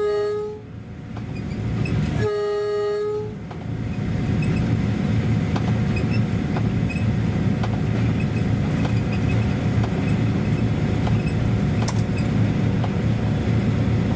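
Train horn blowing: the tail of one blast right at the start, then a second blast of about a second a little after 2 s. After that comes the steady low rumble of the train running, with occasional sharp clicks.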